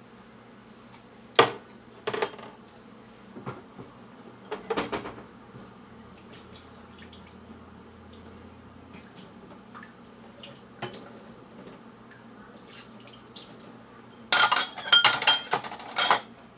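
Dishes and cutlery being handled: a few separate clinks and knocks, then a quick run of loud clattering near the end.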